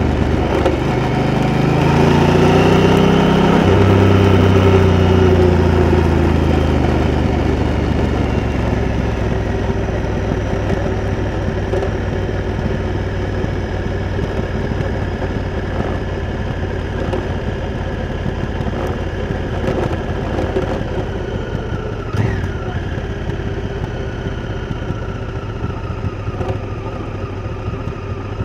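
Honda Africa Twin's parallel-twin engine pulling up through the revs, with a gear change about three and a half seconds in, then running at steadier, lower revs. A single sharp knock comes about three-quarters of the way through.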